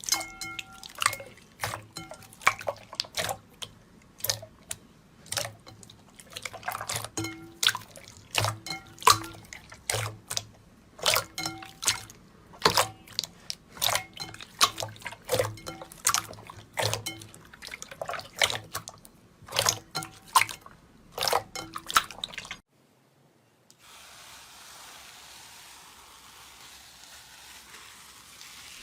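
Slime being squeezed and pressed by hand, giving a quick, irregular run of sharp wet clicks and pops, some with a short ringing pitch like drops. About three-quarters of the way through it stops abruptly, and after a moment of silence only a faint steady hiss remains.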